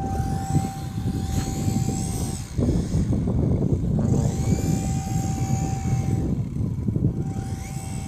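Small motor of a Super Cub model plane whining at a steady pitch in three bursts, switched off between them as it is throttled on and off. Heavy wind buffets the microphone throughout.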